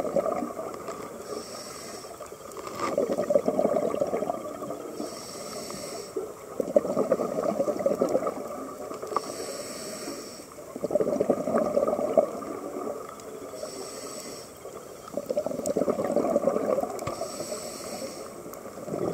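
Scuba diver breathing through a regulator underwater: a short hissing inhale through the demand valve, then a longer, louder bubbling exhale, repeating about every four seconds.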